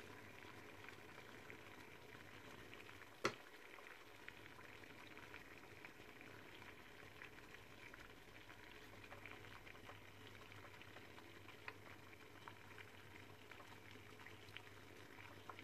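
Faint simmering of water in a heated stovetop steamer, a low hiss with scattered tiny ticks, and one sharp click about three seconds in.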